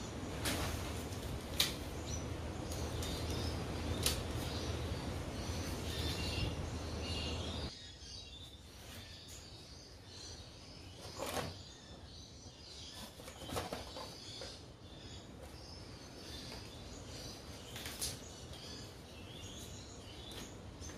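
Birds chirping in the background over a steady low hum that cuts off abruptly about a third of the way in, with a few scattered knocks.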